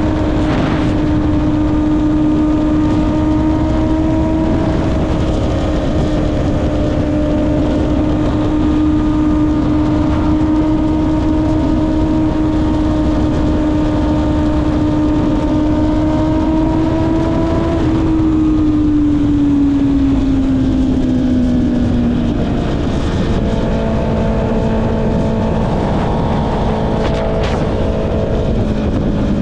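Honda CB650R's inline-four engine running through an Akrapovic exhaust at a steady cruising speed, with wind rushing past. About two-thirds of the way through, the engine note falls gradually as the revs drop, then holds steady at the lower pitch.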